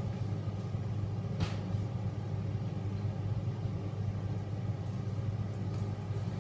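Steady low hum with a single sharp click about a second and a half in.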